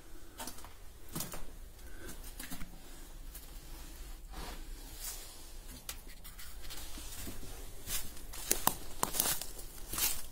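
Footsteps scuffing on the gritty concrete floor of a bunker. About eight seconds in they turn to louder, denser crunching and crackling on dry fallen leaves.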